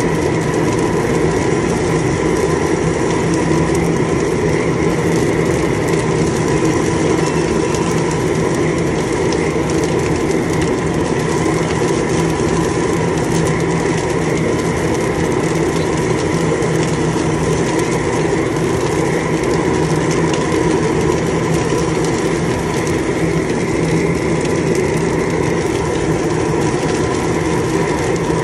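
Propane chile roaster running with a load of green chiles: a steady rush from the burners and a constant mechanical rattle as the mesh drum turns.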